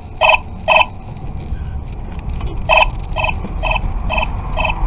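Radar detector in a SHO-ME combo dashcam sounding its K-band alert: short electronic beeps, two quick ones, a pause, then a steady run of about two a second. A low rumble of the car's engine and tyres grows underneath in the second half.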